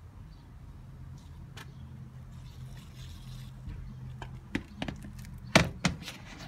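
A steady low hum, then from about four and a half seconds in, scattered knocks and clicks of the clear plastic humidity tote being handled and bumped. The loudest knock comes at about five and a half seconds.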